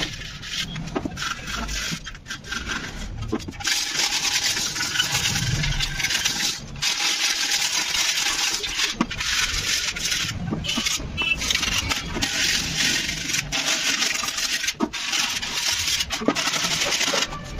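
Old paint being sanded by hand off a Honda Activa scooter's body panel with a sheet of abrasive paper. The result is a rasping scrape in repeated rubbing strokes, with short breaks as the hand shifts position.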